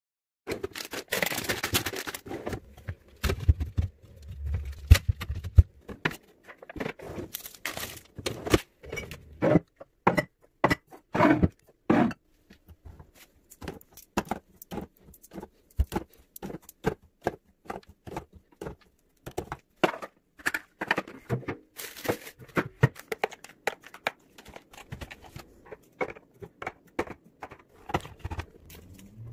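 Food packages and clear plastic organizer bins being handled while a kitchen drawer and fridge are restocked. There are many sharp clicks and knocks as items are set in place, and packaging crinkles and tears.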